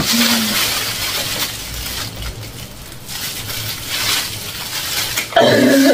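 Thin plastic bag crinkling and rustling as a hand rummages through the snacks inside it.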